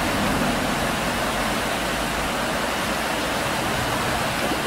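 Steady, even rushing noise with no distinct events, like water or wind.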